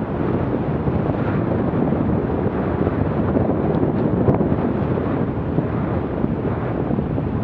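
Wind rushing over the microphone of a camera on a bicycle riding at about 18 mph: a steady, low rushing noise.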